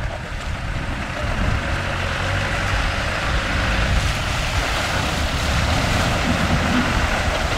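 Land Rover Discovery 4x4 engines running as the vehicles drive through deep muddy water, with water churning and sloshing around them: a steady low rumble under a noisy wash that grows a little louder over the first few seconds.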